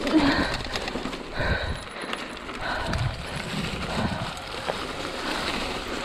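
Mountain bike rolling downhill on a leaf-covered forest trail: tyres crunching over leaves and rough ground, with irregular knocks and rattles from the bike over bumps.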